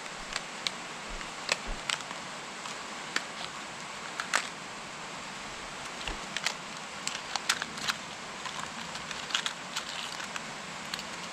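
Plastic parts bag crinkling and small metal cotter pins clicking against each other as gloved hands rummage through them: scattered short, sharp clicks over a steady faint hiss.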